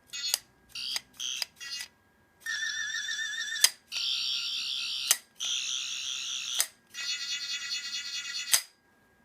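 Toy Doctor Who sonic screwdriver (the War Doctor's) playing its electronic sound effects: a few short chirps in the first two seconds, then four longer warbling, whirring electronic tones of about a second or more each, each ending with a sharp click.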